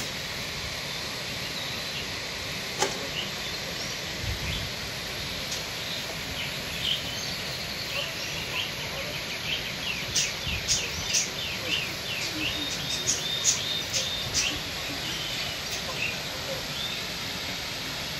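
Steady rush of a waterfall pouring into its pool, with small birds chirping over it, busiest from about ten to fifteen seconds in. A single sharp click sounds about three seconds in.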